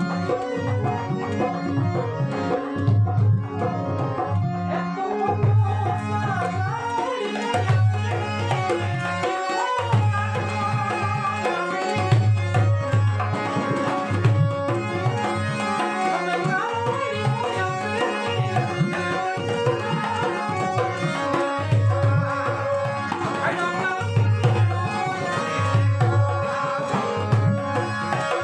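Indian folk music with tabla: deep bass drum strokes recurring every second or two under a wavering melody line and a steady held drone.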